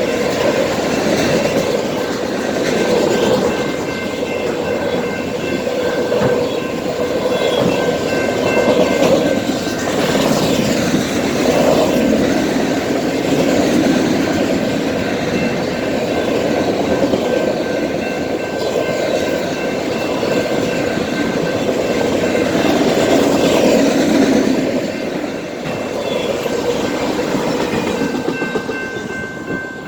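Long BNSF auto-carrier freight train passing at speed: a steady rumble and clatter of the rail cars' wheels over the track, with wind on the microphone.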